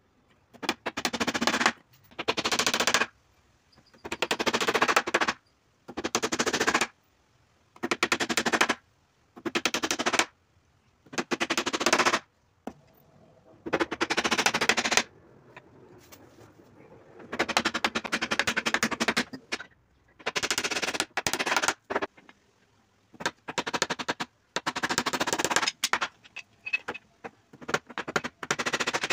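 Power drill or impact driver driving screws into wood in about a dozen short bursts, each one to two seconds long, with short pauses between them.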